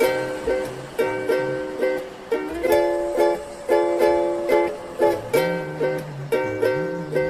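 Background music: a rhythmic tune of repeated plucked chords over a bass line.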